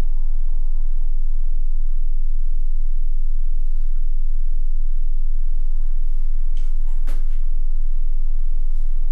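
A loud, steady low hum, with one sharp click about seven seconds in.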